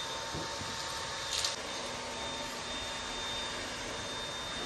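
Cordless stick vacuum running steadily, with a high motor whine over its rushing airflow. It gets briefly louder about a second and a half in.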